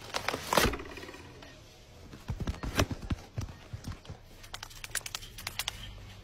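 Animation sound effects: a creature's growling cry that falls in pitch, followed by a run of low thuds and knocks, then a quick patter of light clicks like small scuttling steps.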